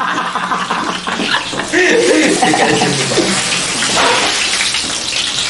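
A man yelling without clear words over a loud, steady rushing noise. The yell is strongest about two to three seconds in.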